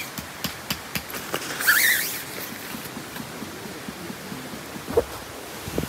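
Camping gear being handled during setup: scattered light clicks and knocks, a short loud rustle about two seconds in, and two dull thumps near the end.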